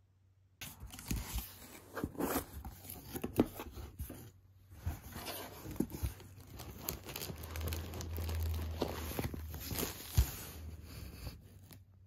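Plastic packaging crinkling and rustling as it is handled and unwrapped, in a quick run of sharp crackles with a brief lull about four seconds in.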